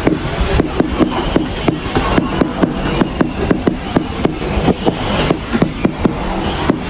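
A hand hammer tapping 30x30 ceramic floor tiles to bed them into the mortar: rapid, sharp taps at about three to four a second. A steady background noise runs under the taps.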